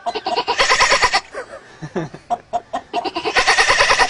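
A man imitating a nanny goat's bleat with his voice: two quavering bleats, each under a second long, about three seconds apart.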